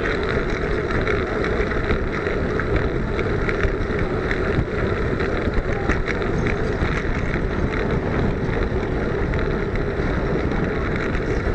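Steady wind rush and road rumble on a small camera mounted low on a Brompton folding bike ridden at speed over tarmac, with faint ticks and rattles scattered through it.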